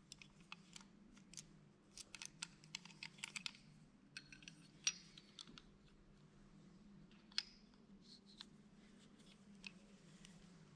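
Faint scattered clicks and light metal taps as a plane blade is fitted and adjusted by hand in a honing guide for sharpening, with two sharper single clicks about five and seven seconds in.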